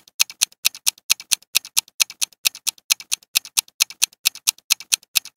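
Clock-ticking sound effect for a quiz countdown timer: fast, evenly spaced ticks, about four or five a second.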